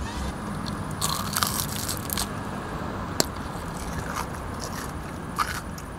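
Biting into the crisp fried crust of a McDonald's fried apple pie: the pastry crunches and crackles in several sharp bursts while it is bitten and chewed.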